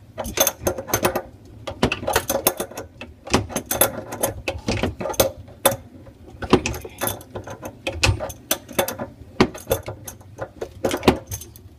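Irregular metallic clicking and rattling in quick runs with short pauses, from tools and faucet fittings being worked loose under a kitchen sink.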